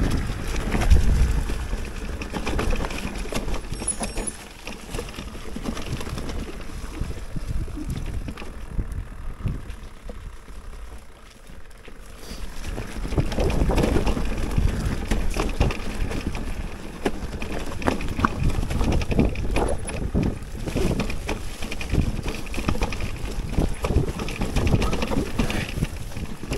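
Mountain bike being ridden over a rough trail: tyre and trail noise with frequent knocks and rattles from the bike, and wind on the microphone. It eases off for a few seconds in the middle, then picks up again.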